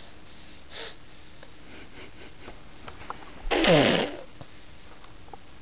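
A toddler blows a raspberry into a telephone handset with his tongue out: a single wet, spluttering burst about half a second long, falling in pitch, about three and a half seconds in.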